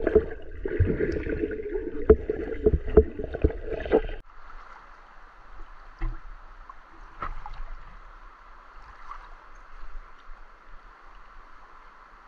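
Muffled underwater water noise, a dense rumble of moving water with several sharp knocks, cutting off abruptly about four seconds in. After that comes a quieter steady hiss of a shallow river flowing, with a couple of faint ticks.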